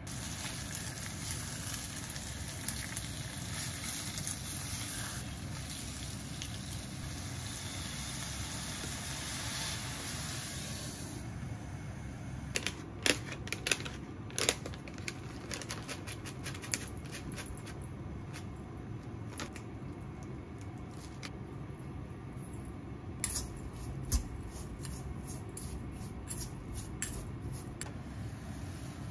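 Pork steaks frying in a frying pan, with a steady hiss of sizzling that dies away after about ten seconds. After that, scattered sharp clicks and taps of kitchen work, in a cluster a few seconds later and a couple more near the two-thirds mark.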